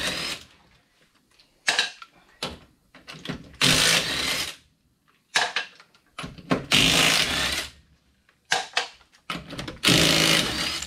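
Impact wrench rattling in several bursts of about a second each, with short clicks between them, as it loosens the lug nuts on the rear wheel of a Can-Am Maverick X3.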